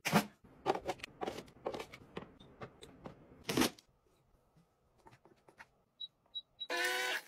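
Hands handling a cardboard box: a quick run of taps and rustles in the first few seconds. Then the power button of a portable mini washing machine is pressed, giving three short beeps about six seconds in, followed near the end by a louder pitched start-up signal.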